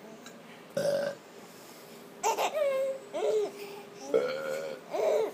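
Baby laughing and babbling in several short bursts of giggles.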